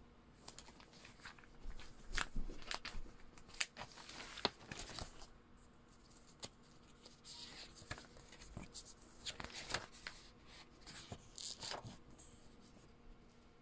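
Paper magazine pages being handled and turned: faint, irregular rustling and crinkling with sharp little clicks, in two clusters with a quieter gap between them.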